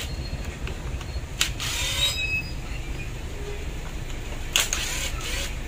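Cordless drill driver backing screws out of a Makita HR2470 rotary hammer's housing, in two short runs of about a second each, over a steady low hum.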